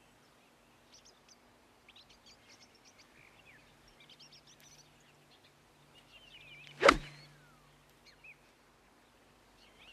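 Birds chirping, with a single sharp crack of a golf club striking a golf ball about seven seconds in.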